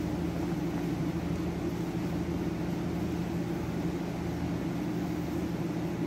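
A steady low machine hum over a constant hiss.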